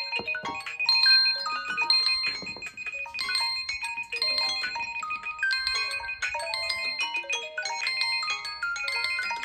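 Several smartphones ringing at once, their different ringtone and alarm melodies playing over each other, with a fast high-pitched beeping running through.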